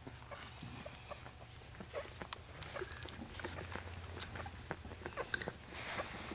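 Two-week-old golden retriever puppies suckling at their mother: soft, irregular wet sucking and smacking clicks.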